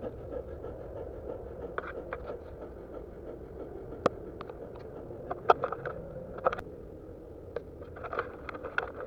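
Irregular scrapes, crunches and clicks, like someone moving over rocky, grassy ground, over a steady low background noise. They come more often in the second half.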